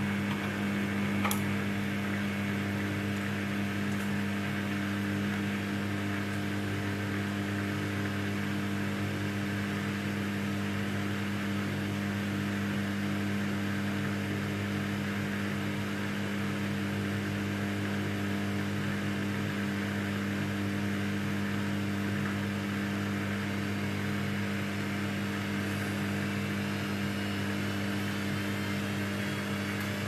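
Samsung Ecobubble 8kg front-load washing machine spinning its drum at speed: a steady motor hum with a hiss above it, and a faint whine rising in pitch over the last few seconds.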